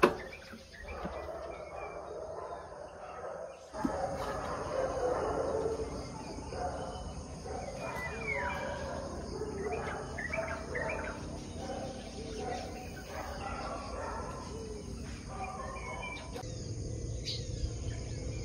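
Birds chirping and calling outdoors in the morning, many short overlapping calls, livelier after the first few seconds.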